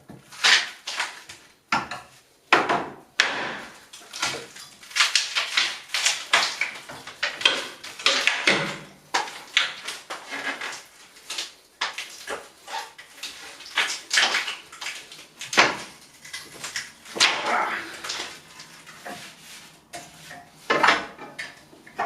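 Wooden trim being pried off a lath-and-plaster wall: irregular creaks, cracks and scrapes of wood and plaster, with short squeaks as fixings are pulled.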